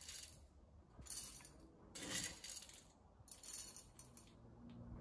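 Whole coffee beans scooped from a glass jar and tipped into a stainless steel dosing cup: a handful of short, faint rattles of beans, about one a second.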